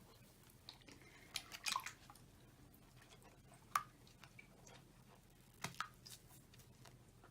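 A few faint drips and small splashes of water in a foamy bath, coming singly and at uneven gaps.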